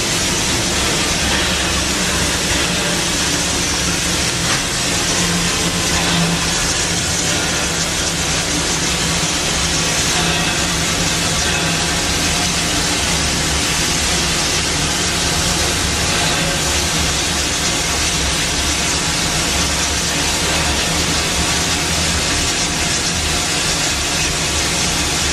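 Steam locomotive No. 42 venting a jet of steam low at its front: a loud, steady hiss, with a steady low hum underneath.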